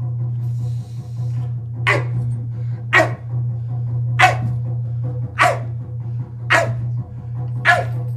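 A man's voice giving short animal-like barks, one about every second, each call falling sharply in pitch, as a shamanic animal imitation. A steady low hum runs underneath.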